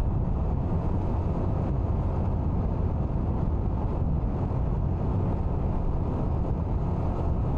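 Motorcycle cruising at a steady speed: a continuous low rumble of engine and road noise mixed with wind rushing over the microphone.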